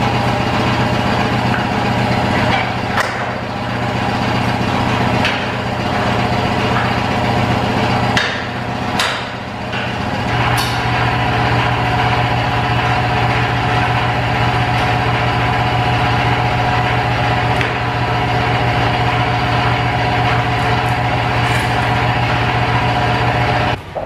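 A milking-machine vacuum pump runs with a steady, even hum, and a few short knocks come about eight to ten seconds in.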